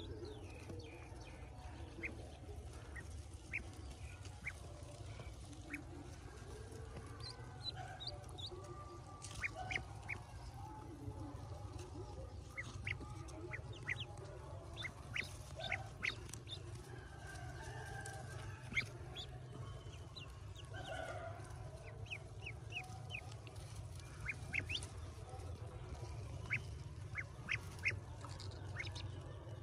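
A brood of newly hatched Pekin ducklings peeping, many short high chirps scattered and overlapping, over a steady low hum.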